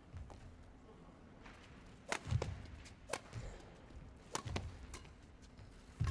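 Badminton rally: three sharp racket strikes on the shuttlecock, about a second or so apart, with dull thuds of the players' footwork on the court.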